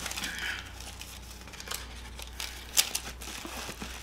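Plastic candy packaging being handled: rustling and crinkling with scattered light clicks, two sharper clicks close together near the end.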